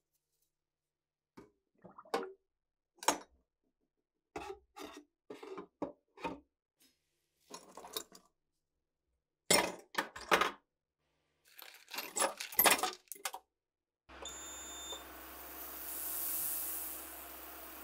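Rusty steel PTRD rifle parts clinking and scraping against each other as they are handled, in short sharp knocks with gaps between. About fourteen seconds in, a digital ultrasonic cleaner switches on and runs with a steady hiss over a low hum, cleaning the submerged parts.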